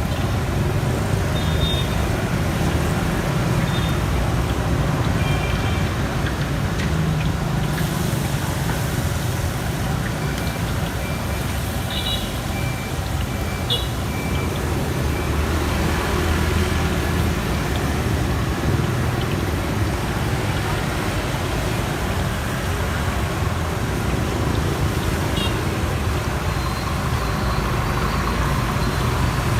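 Steady street traffic noise, with a few short high beeps scattered through it.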